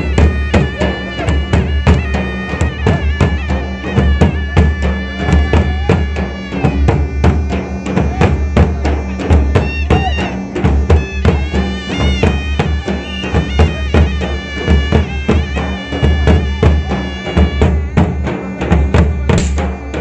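Traditional folk music: fast, dense drumming with a high, held melody line over it.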